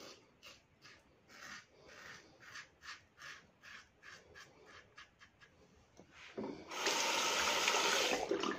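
Safety razor scraping through lathered stubble in a series of short strokes, about one or two a second. Near the end a tap runs hard for about two seconds, the loudest sound.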